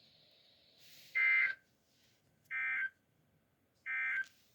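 Three short bursts of Emergency Alert System SAME data tones from a weather radio, a buzzy two-tone warble, each about half a second long and about a second apart. Coming right after the read-out of a severe thunderstorm warning, they are the burst sequence that closes the alert message.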